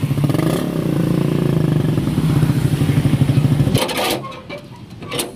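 Suzuki Raider motorcycle engine running loud and steady with a fast even pulse, cutting off suddenly about four seconds in. A few sharp knocks follow near the end.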